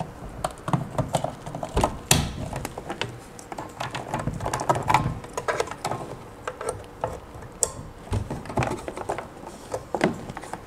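Small irregular plastic clicks and handling knocks as an RJ45 Ethernet patch cable is plugged into an access point's port and a PoE switch port, the loudest click about two seconds in.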